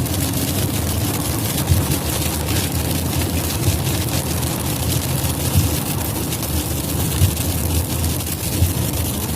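Hailstones falling thickly and hitting hard surfaces in a dense, continuous clatter of small impacts, with a few louder strikes now and then, over a steady low rumble.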